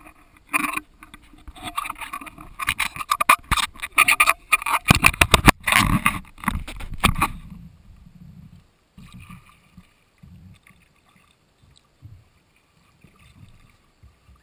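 Sea kayak paddle strokes dipping and splashing in calm water close to the hull, with dense crackling splashes and drips for the first seven seconds or so. After that the strokes turn to faint, sparse dips.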